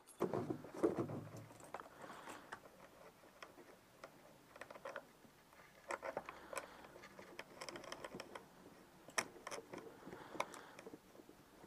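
Faint scattered clicks, ticks and light rustling of hands handling wiring and small parts, with a few sharper clicks now and then.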